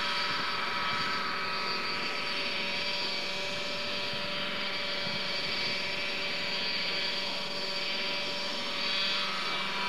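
Radio-controlled scale model helicopter hovering low, its small engine and rotor running at a steady, unchanging pitch.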